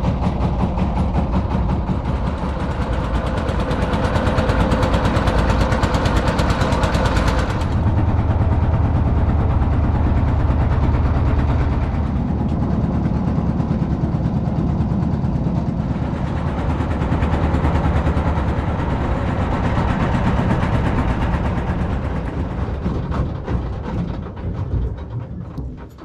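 Diesel engine of a small wooden river trawler running steadily under way during a river crossing. It shifts to a lower note about seven and a half seconds in and fades near the end as the boat comes in to the bank.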